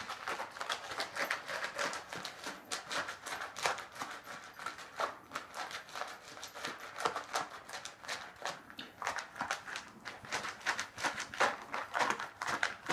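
Dog eating dry kibble from a bowl: a fast, irregular run of crunches and clicks as it chomps the pellets.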